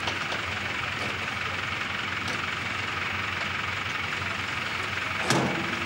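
Box van engine running steadily with its exhaust silencer gone, giving a loud, rough, unmuffled idle. A single sharp knock sounds about five seconds in.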